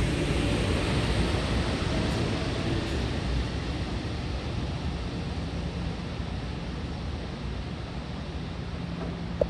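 Long Island Rail Road M3 electric multiple-unit train's wheel and track rumble, fading steadily as the last cars move away.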